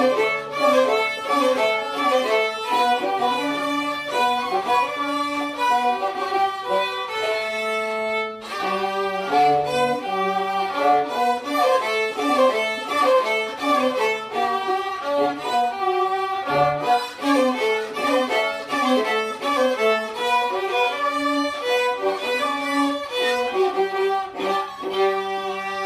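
Two violins and a cello played together by children, a string trio piece going on steadily, with a brief break in the playing about eight seconds in.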